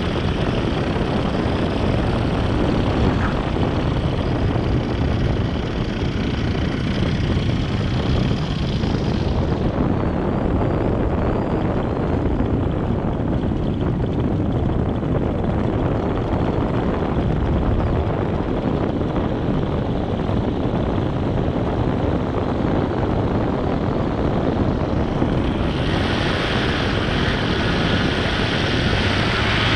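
Steady rush and whir of propellers in flight, with no clear engine note. The higher part of the noise drops away about ten seconds in and comes back near the end.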